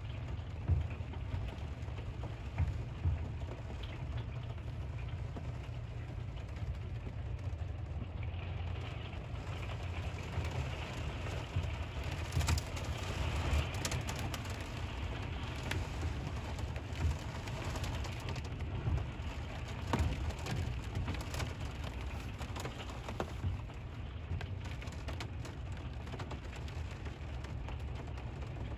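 Steady rain falling on a campground, with a constant low rumble underneath and occasional sharp taps of drops landing close by.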